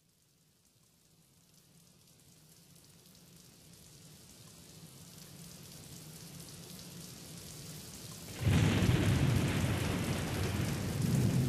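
Rain falling, fading in slowly from silence and growing steadily louder, then a sudden loud thunderclap about eight and a half seconds in that rumbles on.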